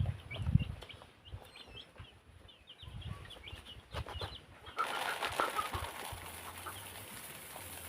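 Chickens, with many quick high peeping chirps through the first few seconds and a few soft low thumps. About five seconds in the background changes suddenly to a steady hiss with a low hum.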